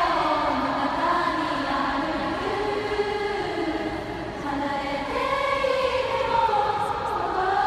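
A huge concert crowd singing a slow melody together as one mass choir, in long held notes.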